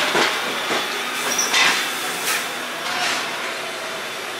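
Class C61 steam locomotive (C61-20) standing at rest, hissing steam in irregular surges over a steady hiss, with a faint steady low hum beneath.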